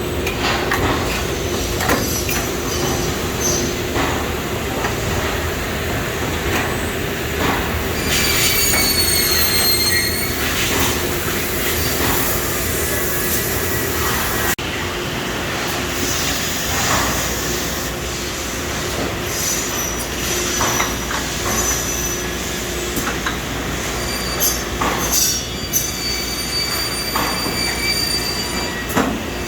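Sturtz vertical welder running in a shop: a steady mechanical din over a low hum, with scattered knocks and clatters and high squealing whines that come and go, strongest about eight to ten seconds in.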